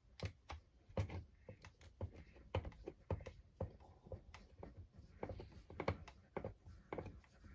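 Irregular light clicks and taps of a hand driver and small plastic and metal RC truck parts being handled while screws are driven in by hand.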